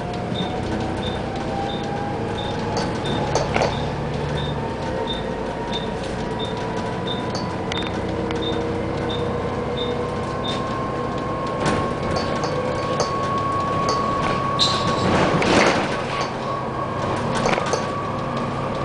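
Double-decker bus heard from inside its upper deck, running along the road with a drivetrain whine that rises slowly in pitch as it gathers speed, over rattles and knocks from the body. A faint high tick repeats about twice a second through the first half.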